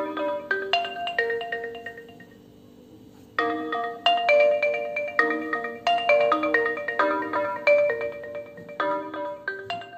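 Realme 6 Pro stock ringtone playing: a bright marimba-like melody of struck notes that dies away about two seconds in, then starts over a second and a half later.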